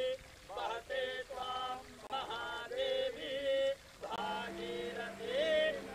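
Voices chanting a prayer in short melodic phrases with brief breaks between them; a steady low hum joins about four seconds in.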